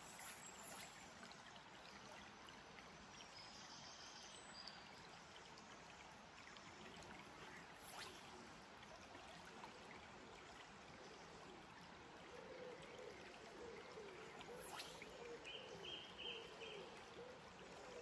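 Faint, steady rush of a small river's current.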